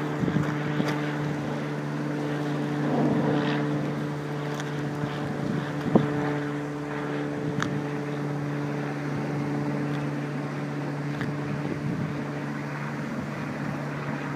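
A steady engine or machine hum holding one constant pitch, with a single sharp knock about six seconds in.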